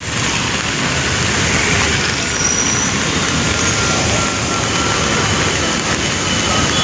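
Steady wash of noise from monsoon rain and traffic on a wet city street.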